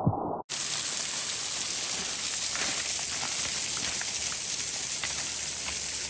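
Briefly muffled drumming of water on the camera, then a sudden switch to a steady hiss of rushing falling water, with a few faint ticks of drops or pebbles.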